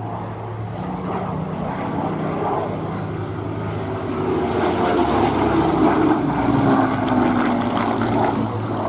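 Rolls-Royce Merlin V12 engine of a Second World War fighter flying past, a steady drone that grows louder through the middle and drops in pitch over the second half as it passes.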